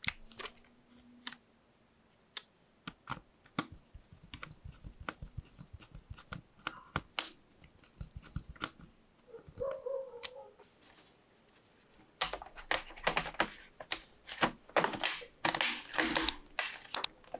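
Hands working on laptop hardware: scattered small clicks and taps, turning about twelve seconds in into a dense run of clicking and rustling.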